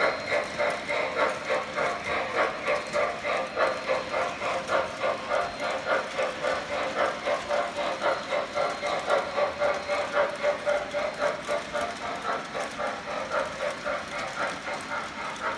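Model passenger train running past on a layout, making a steady rhythmic clatter of about four beats a second. The clatter eases off a little near the end.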